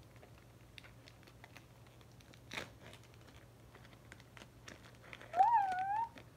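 Foil wrapper of a hockey card pack crinkling faintly as it is handled and opened, with scattered small clicks and one sharper click. Near the end comes the loudest sound, a short, high, wavering vocal sound lasting under a second.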